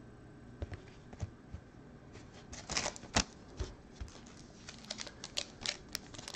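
Stiff chromium trading cards being handled and laid down on a stack on a table: a scatter of light sharp clicks and taps, busiest a little before the middle and again near the end.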